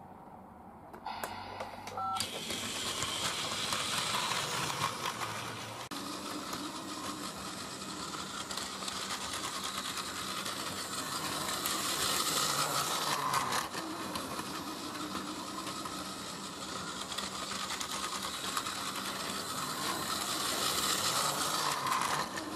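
Battery-powered Plarail toy train (Hakone Tozan 3000-series 'Allegra' model) running on plastic track: a steady small-motor whir with the rattle of wheels and gears. It starts up about two seconds in and keeps going, its level rising and falling a little as the train moves along the layout.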